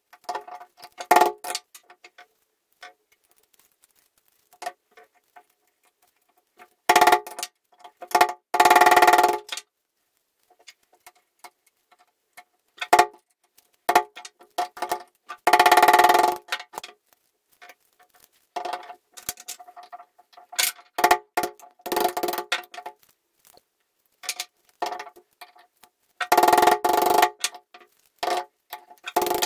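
Metal-on-metal scraping and prying in the gear housing of an old hand-cranked breast drill held in a bench vice: irregular scrapes lasting a second or so, each ringing with the same metallic tone, and small clinks and ticks between them.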